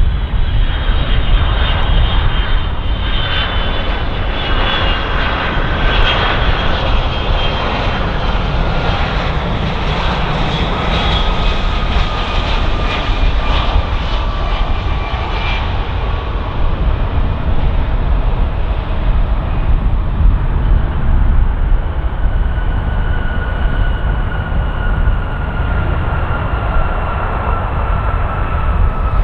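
Jet airliner on landing, passing close by: a steady jet engine rumble, with several thin turbofan whines slowly falling in pitch. The high hiss is brightest around the middle, as the aircraft goes by.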